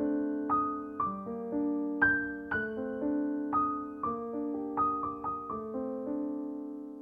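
Background piano music: a gentle melody of notes struck about twice a second, each fading away.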